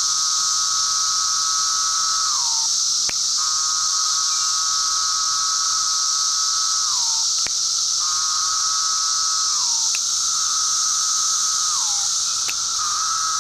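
Male 17-year periodical cicadas calling: long buzzing calls, each held for a few seconds and then slurring downward, one after another over a steady high-pitched cicada chorus. Four sharp finger snaps, imitating a female's wing-flick click, each answered shortly by a male's call.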